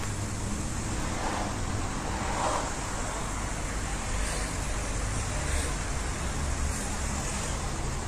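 Steady low rumble with a hiss over it, a continuous background noise.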